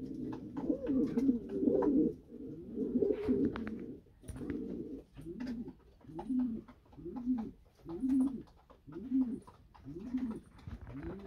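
Norwich cropper pigeons cooing: a dense run of overlapping low coos for the first few seconds, then single rising-and-falling coos repeating about once a second.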